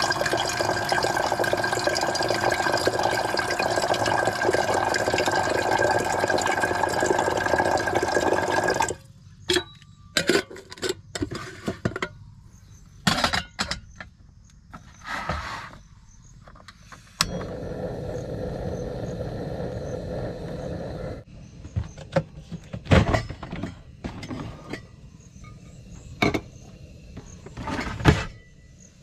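Tap water running into a camping kettle in a stainless-steel sink, cut off suddenly about a third of the way through. Scattered clinks and knocks of the kettle being handled and set on a portable gas stove follow. There is a few seconds of steady rushing noise partway along, and more knocks near the end.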